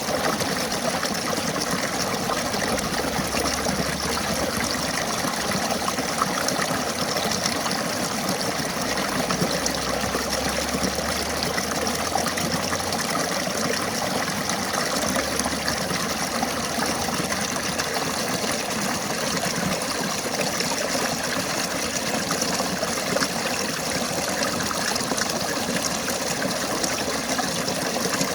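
River water flowing steadily over its bed, a continuous even sound of running water.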